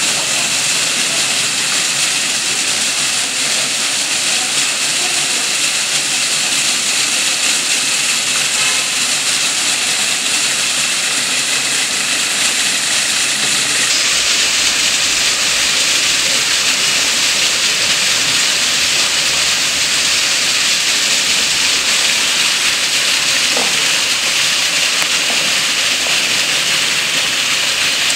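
Foam-jet fountain and water cascade running: a steady, high rush of splashing and falling water. The sound turns a little brighter about halfway through.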